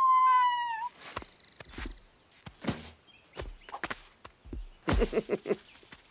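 Cartoon sound effects: a short high-pitched, slightly falling vocal cry at the start, then scattered light knocks and scrapes of a pumpkin being carved, and a quick run of small vocal grunts about five seconds in.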